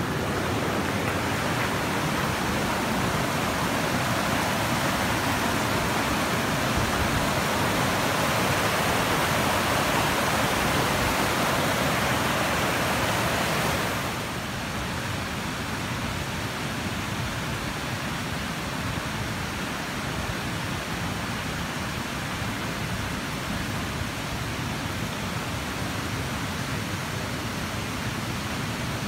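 Creek water rushing over rocks in small cascades, a steady hiss that drops noticeably in level about halfway through.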